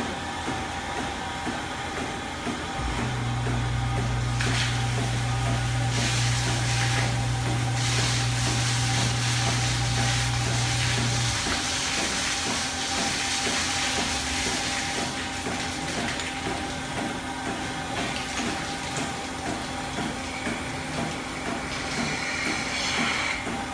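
Milking parlour machinery running: the milking system's steady hum with a fast, even pulsing from the pulsators on the milking units. A deeper motor hum joins about three seconds in and stops about eight seconds later, and hissing rises and falls in the middle, with a brief hiss again near the end.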